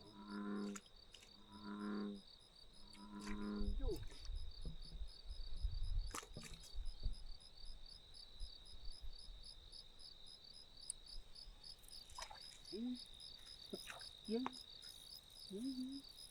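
Insects chirping in a steady, high, rapidly pulsing drone. Near the start come three short pitched calls about a second and a half apart, a low rumble on the microphone follows about four to seven seconds in, and a few short rising chirps come near the end.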